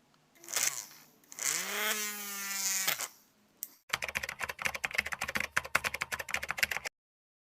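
A brief whoosh, then a pitched hum that rises and levels off before stopping about three seconds in. Then comes about three seconds of rapid, irregular typing clicks, which cut off suddenly.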